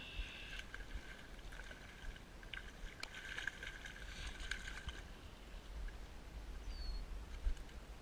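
A hooked trout thrashing and splashing at the water's surface close to the bank as it is reeled in, over a steady whirr from the fishing reel that stops about five seconds in.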